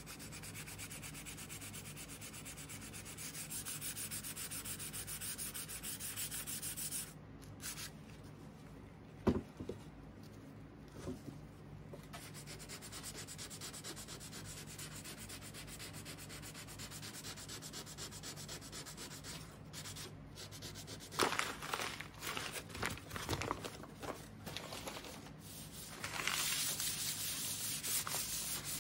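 Hand sanding a stripped wood-veneer cabinet door with a sanding sponge: quick back-and-forth scratching strokes. The strokes pause for a few seconds about a quarter of the way in, and a few light knocks fall in the middle.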